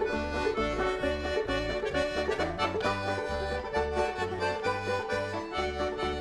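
Instrumental background music with a steady, bouncing bass line.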